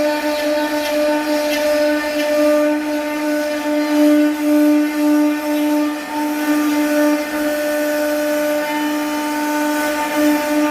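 CNC router spindle running with a steady high whine while cutting wood, its loudness swelling and dipping as the bit works through the cut.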